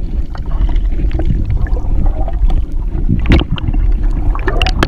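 Water splashing and sloshing around a capsized kayak as people in the river struggle to right it, over a heavy low rumble on the microphone. Sharper splashes or knocks come about three seconds in and again near the end.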